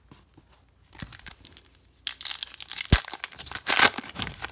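Foil wrapper of a trading-card pack being torn open and crinkled, quiet handling at first and loud from about two seconds in, with a short knock about three seconds in.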